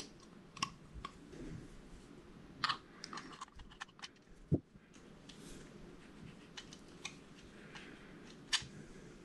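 Scattered light clicks and taps of small metal parts as a Coast Reels fishing reel is taken apart: the lock washer and spacers on the spool spindle worked loose by hand and with a screwdriver, with one duller knock near the middle.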